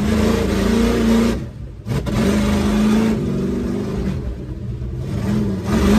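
Mud truck's engine heard from inside the cab, running hard under throttle. Its sound drops away for about half a second roughly a second and a half in, then comes back and holds steady, rising again near the end.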